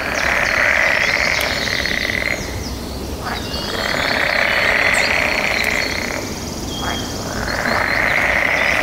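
Frogs calling: a long trilling call of about two seconds, repeated three times with short pauses, over fainter, higher chirps from other callers.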